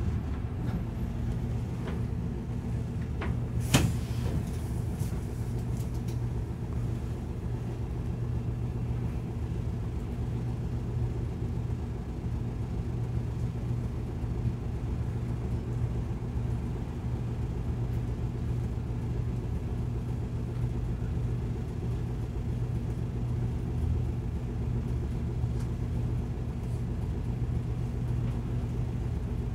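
City bus engine idling steadily, heard inside the cabin as a low, even hum while the bus waits in traffic. A single sharp click about four seconds in.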